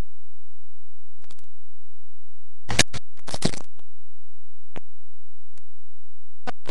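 Webcam microphone being handled as the camera is moved: short scratching and rubbing noises, loudest in a cluster about three seconds in, followed by a few brief ticks. A steady low electrical hum runs underneath.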